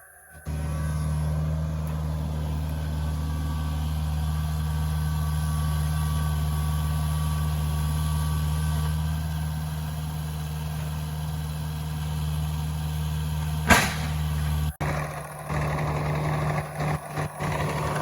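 Engine idling steadily at a low, even pitch, with one sharp bang about fourteen seconds in.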